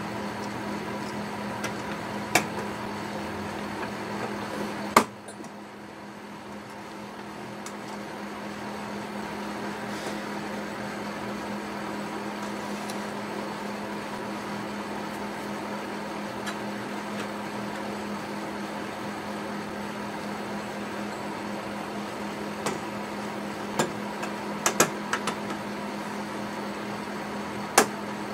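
Small sharp clicks and taps of brass clock-movement parts being handled and fitted together, over a steady background hum. One loud click comes about five seconds in, and a cluster of lighter clicks comes near the end.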